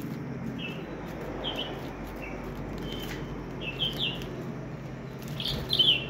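Lovebirds giving short, high chirps, scattered at first, then several in quick succession about four seconds in and the loudest pair near the end.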